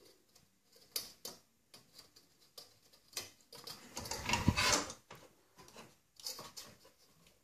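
Hands working among the parts inside a PC case: scattered clicks and light rattles of plastic and metal, with a longer, louder scraping clatter about four seconds in.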